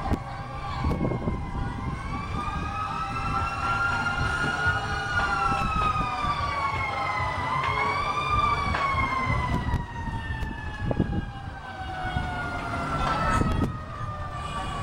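Several fire truck sirens wailing at once, their pitches slowly rising and falling out of step with one another, over a low background rumble.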